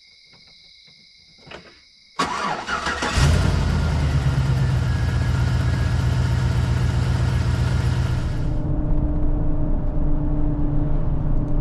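A car or truck engine cranks and starts about two seconds in, then runs steadily. A hissing rush over the engine falls away about eight seconds in.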